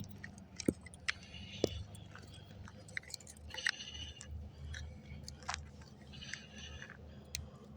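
Scattered clicks, scrapes and wet crunching of hand work in a muddy hole around a buried PVC water pipe, with a low steady hum underneath.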